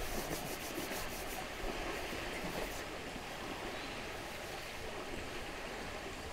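Water splashing and sloshing around the legs of an Indian one-horned rhinoceros as it wades through a shallow stream, over a steady wash of noise.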